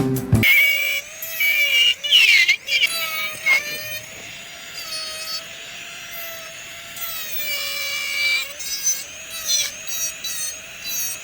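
Small high-speed rotary handpiece running with a steady whine that wavers up and down in pitch as it bears on the work, with a few sharp squeals where it grinds the broken denture acrylic.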